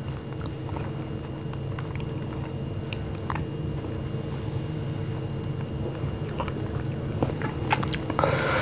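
Fingers squishing and mixing soft rice with mashed bhorta on a ceramic plate, with scattered small wet clicks and taps of fingertips against the plate. Near the end comes a louder, rough scraping rush for under a second as the food is pressed together into a mouthful. A steady low hum runs underneath.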